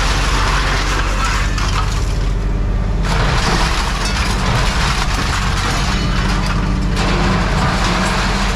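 Scrap being handled, a dense crunching, rattling clatter in stretches of a few seconds, over a steady motor hum.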